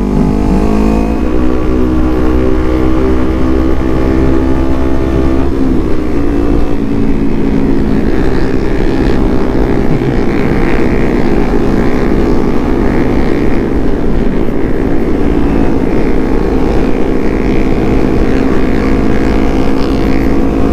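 Kawasaki Z250's parallel-twin engine running while the bike cruises on the road, heard close up with wind noise on the helmet microphone. The engine note changes about five seconds in, then holds steady.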